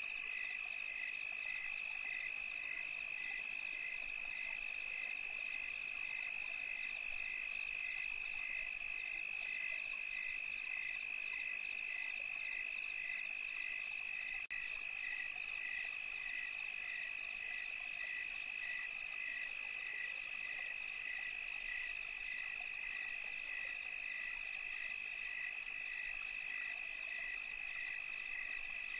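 Steady night chorus of calling insects and frogs: one continuous high trill with a second call pulsing evenly over it about twice a second.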